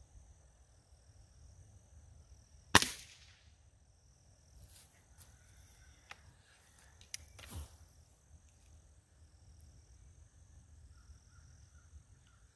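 Gamo Wildcat Whisperer .177 break-barrel pellet rifle firing once, a single sharp crack about three seconds in. It is followed a few seconds later by light clicks and a clunk as the barrel is handled and broken open for the next pellet.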